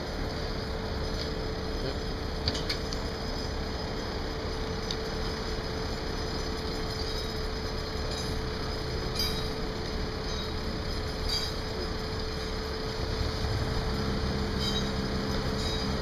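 Construction machinery running steadily with a constant hum, and a few light metallic clinks. A lower engine hum joins near the end.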